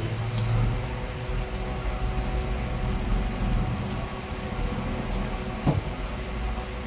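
Electric sanding machine running steadily while it sands a plastic headlight lens with 1500-grit paper, the final sanding stage, with a steady motor hum. There is one short knock late on.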